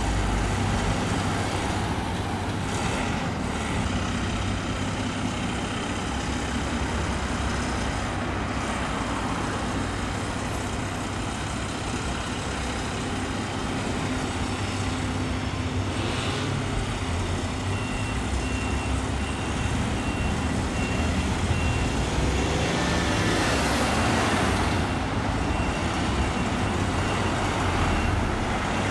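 Aerial ladder fire engine's diesel engine running as it manoeuvres, with its reversing alarm sounding steady repeated beeps from about two-thirds of the way through as it backs toward its bay. A passing vehicle swells and fades a little before the end.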